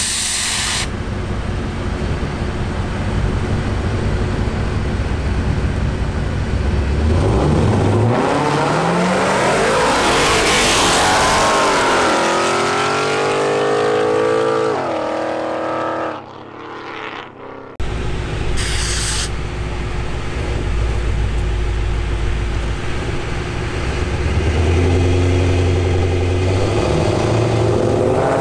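Supercharged Ford Mustang's 5.0 V8 and a second V8 street car revving at the line, then launching and accelerating hard away, the engine note climbing and dropping back with each gear change before fading out. After a cut, engines idle loudly at the line again and begin to rev up for another launch near the end.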